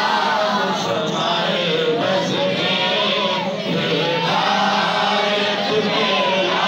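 A group of men chanting Durood-o-Salam, devotional salutations to the Prophet, together in a sung, drawn-out melody.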